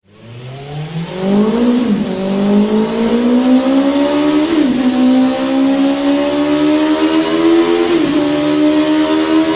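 BMW S 1000 R inline-four motorcycle engine fitted with a Mivv X-M1 slip-on silencer, accelerating through the gears. The engine note climbs steadily and drops sharply at each of three upshifts, about two, four and a half and eight seconds in.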